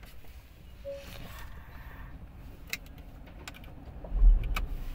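A few light clicks, then about four seconds in a Porsche Macan's 2.0-litre petrol engine starts with a sudden low surge and settles into a steady idle.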